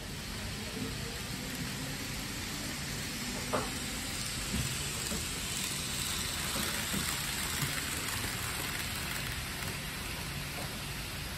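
N-scale model trains running on the layout track: a steady rolling hiss and rumble of small wheels and motors, with a sharp click about three and a half seconds in.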